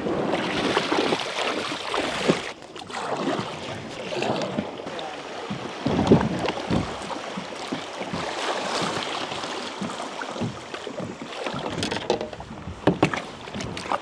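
Water splashing and sloshing around a kayak on a river, with scattered knocks and rustles, louder near the middle and near the end.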